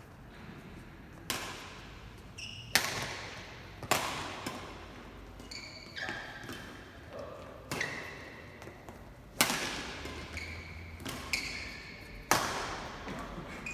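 Badminton rackets striking a shuttlecock in a doubles rally: about eight sharp hits, roughly one every one and a half seconds, each echoing in a large hall. Short shoe squeaks on the court floor come between the hits.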